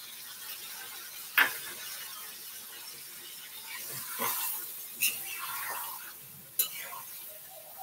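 A kitchen utensil clinking and scraping against a pan of cooking chicken, with three sharp clicks, over a steady hiss.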